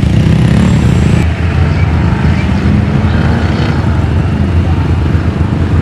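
Off-road vehicle engine running hard down a sand drag strip: a loud, steady low rumble, with a change in the sound about a second in.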